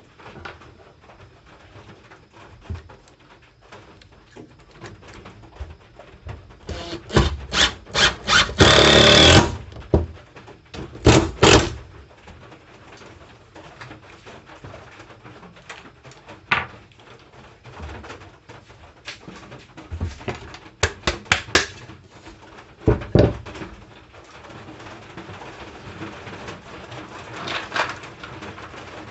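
Cordless impact driver driving screws into wooden boards: several short bursts, then one burst of about a second, and two more short bursts soon after. Scattered single knocks of the boards being handled come between.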